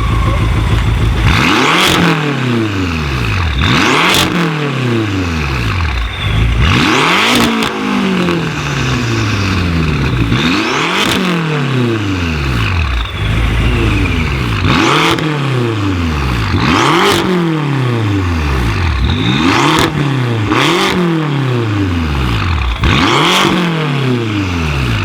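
Tuned twin-turbo V8 of a Manhart MH6 700 BMW M6 being revved hard in place, about ten quick blips one after another. Each rev climbs and falls back with a rush of hiss near the top.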